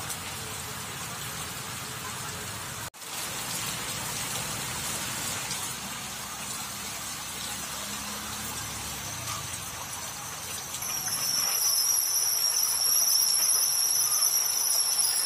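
Heavy rain falling on a flooded road and tiled pavement, a steady hiss of drops splashing into standing water. The sound cuts out for an instant about three seconds in. From about eleven seconds in, a steady high-pitched whine joins and the overall sound grows louder.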